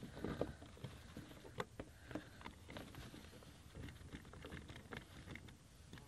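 Scattered small clicks, taps and rustles of hands working the strap and locking mechanism of a fishing seat frame on an inflatable paddle board.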